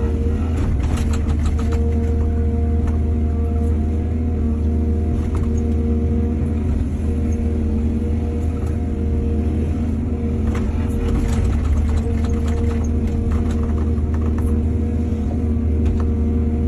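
Excavator's diesel engine running steadily with a deep hum, with bursts of knocking and rattling about a second in and again from about ten to fourteen seconds in.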